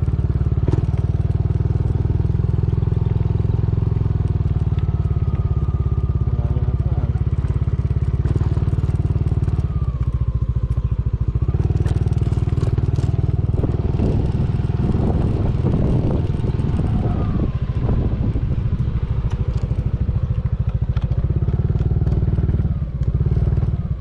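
Motorcycle engine running steadily while riding, a continuous low hum.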